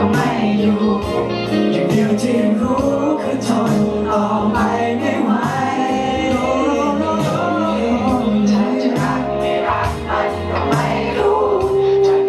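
A male vocalist sings a Thai pop ballad live into a handheld microphone, with musical accompaniment.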